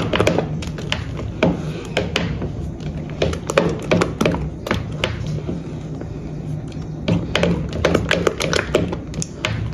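Thick brigadeiro mass being stirred in a pot: the stirring utensil gives irregular taps and knocks against the pot, with some scraping, over a steady low hum.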